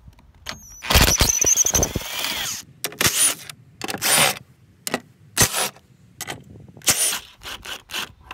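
Cordless impact driver backing out screws and bolts: one long run of about a second and a half, then a string of short trigger pulls, each with a high motor whine.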